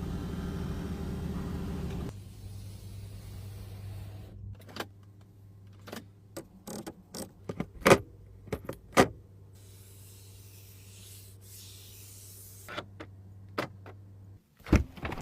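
Rolls-Royce car fittings in use: a series of sharp clicks and solid thumps, like switches, latches and doors, over a steady low hum, with a short soft hiss about two-thirds of the way through.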